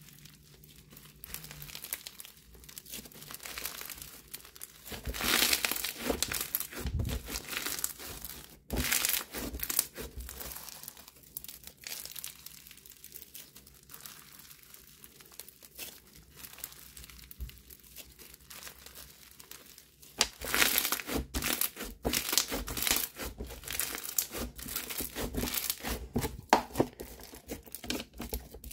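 Bingsu bead slime being stretched, folded and squeezed by hand, its beads giving a crisp crackling and crunching. The crackle comes in louder spells about five and nine seconds in and again through the last third, with softer crackle between.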